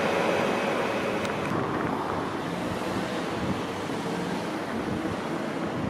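Freight train rolling along the rails, a steady wheel-and-track rumble that slowly fades.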